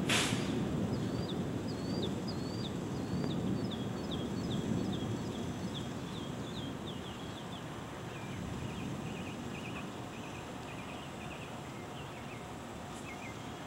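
Thunder rumbling and dying away over the first few seconds, after a brief sharp click at the start. A bird calls over it with a run of quick, high, downward-sweeping chirps, later followed by other short chirps.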